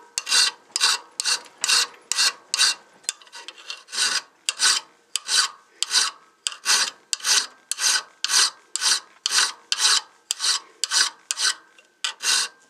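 Round hand file rasping over the curved edge of a stainless steel knife blank, in quick, even strokes about two to three a second, smoothing a rounded contour into the profile.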